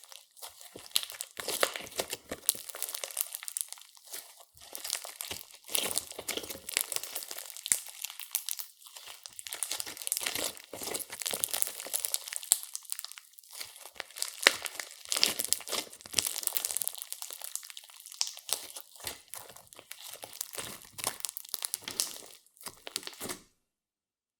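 Clear slime mixed with makeup and glitter being squeezed, stretched and folded by hand. It gives dense, uneven crackling and popping clicks in bursts with brief pauses, then stops abruptly near the end.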